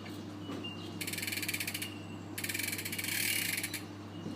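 Academy BMX rear hub with a 9-tooth driver freewheeling: its pawls tick rapidly as the rear wheel spins backwards. The ticking comes in two bursts of about a second each.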